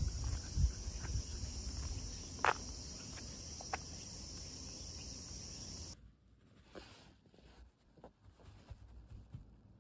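Insects drone steadily outdoors in summer, with low wind or handling rumble, footsteps and a few sharp clicks, the loudest about two and a half seconds in. About six seconds in, this cuts off abruptly to a quiet room with faint rustling of a hand stroking a dog's fur.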